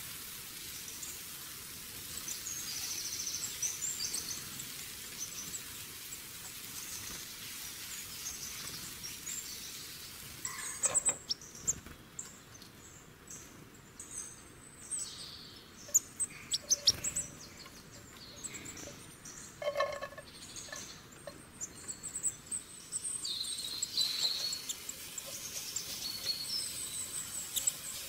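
Birds chirping over steady outdoor background noise. From about eleven seconds in, scattered sharp knocks and scrapes come in, a metal spatula working against the iron karahi as the chicken is stirred.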